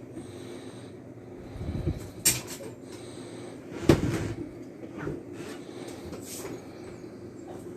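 Refrigerator doors being handled: a few sharp knocks and clunks, the loudest about two and four seconds in, over a steady low hum.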